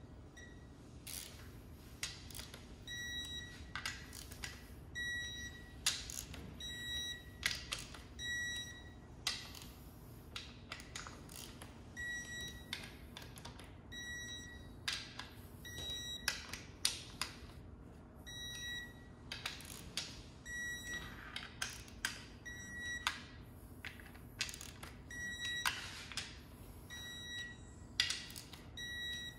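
Electronic torque wrench tightening oil pan bolts: short high beeps about a second apart, in runs of several, mixed with sharp ratchet clicks as the wrench is swung and reset.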